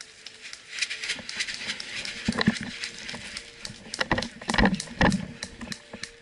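Scattered sharp clicks of airsoft gunfire, with rustling of brush close to the helmet camera. Several loud low thumps come between about two and five seconds in.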